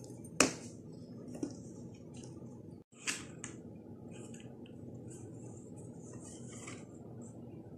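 Paper lacing card and yarn being handled and threaded on a table: faint, intermittent rustling and scraping, with a sharp click about half a second in and another just after a brief dropout near three seconds.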